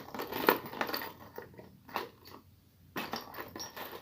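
Small hard objects clicking and rattling as hands rummage through them for a hot-glue stick, with a few sharper knocks, the loudest about half a second in.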